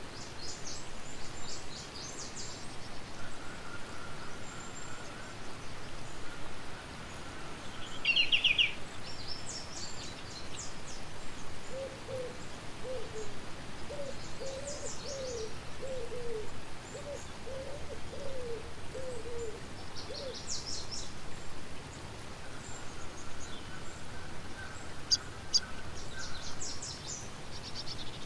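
Outdoor birdsong: repeated high chirping trills, with a louder chirp burst about eight seconds in. From about twelve to twenty seconds a run of about a dozen short, low, falling cooing notes sounds under it.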